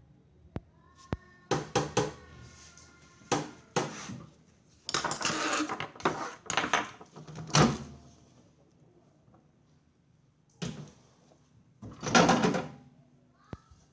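Irregular knocks and clattering of hard objects being handled, one knock ringing briefly near the start and a longer rattle about twelve seconds in.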